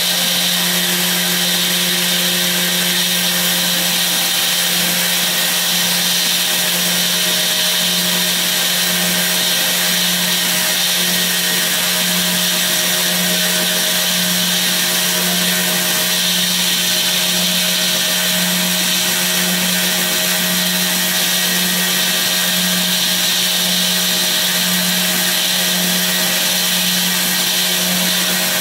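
Spindle of a home-built CNC router running at a steady speed while its end mill cuts a foam block: a constant low hum under a high whine, unchanging throughout.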